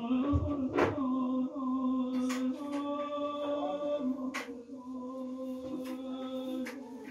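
A man's voice holding one long sung note, steady in pitch, for nearly seven seconds before it stops near the end, with a few short clicks over it.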